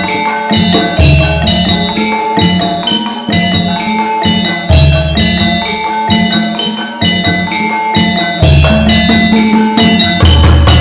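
Javanese gamelan music accompanying a classical dance: bronze metallophones play a busy stream of struck, ringing notes, with a deep low stroke four times.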